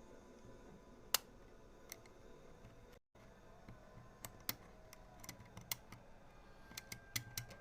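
Scattered small clicks and taps of parts being handled while reassembling an airsoft gas magazine, with one sharper click about a second in and a quick run of small clicks near the end.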